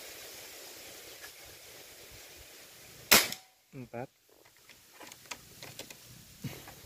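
A single air rifle shot about three seconds in, a sharp crack, the fourth of a five-shot test group. Before it wind rushes on the microphone, and a few faint clicks follow near the end.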